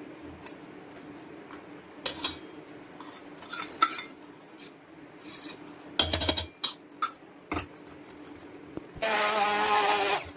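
A spoon clinks and scrapes against the container as malai is scooped in, in scattered knocks. About nine seconds in, an electric hand blender starts running in the malai, a loud steady whir, whipping it into cream.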